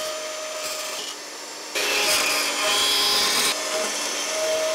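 Vertical band saw cutting through thin aluminium plate, the blade rasping through the metal over a steady motor hum. The cutting gets louder about two seconds in for a second and a half, then eases.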